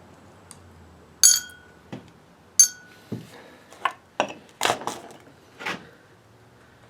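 Metal tools and winch-motor parts being handled: two sharp, ringing metallic clinks, then a run of shorter knocks and clicks.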